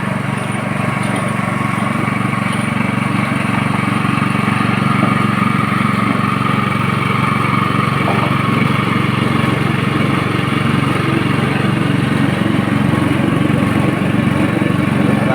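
Coconut-milk press machine running steadily, an even mechanical drone from its motor.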